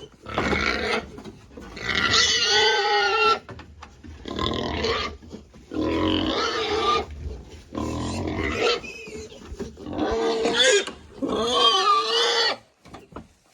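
Pigs calling loudly in a series of about seven high, wavering cries, each lasting about a second with short gaps between them.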